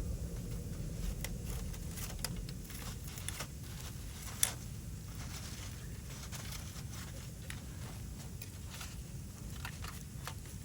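Wood fire crackling: scattered sharp pops and ticks from the burning wood, one louder pop about four seconds in, over a steady low rumble.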